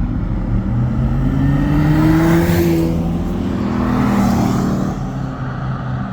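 A car's engine and exhaust, growing louder and rising in pitch to a peak about two and a half seconds in, then falling in pitch and fading.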